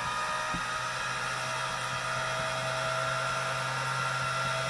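Electric pasta machine motor running steadily with a hum and a whine, turning the cutter rollers as a thin sheet of egg-noodle dough is fed through.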